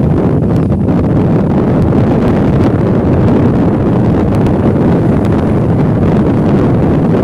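Steady wind noise buffeting the microphone of a moving Hero Passion Pro motorcycle, over the bike's running single-cylinder engine.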